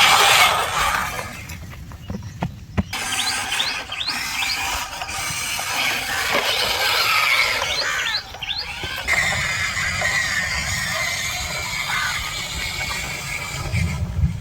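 Radio-controlled construction models working: a steady mechanical noise from their motors and gears, with short high squeaks in two clusters, a few seconds in and again around the middle.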